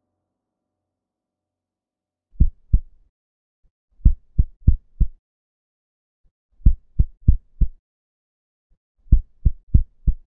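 Deep electronic kick drum hits with nothing else playing, about three a second. Two come about two seconds in, then three groups of four, with a short gap between each group.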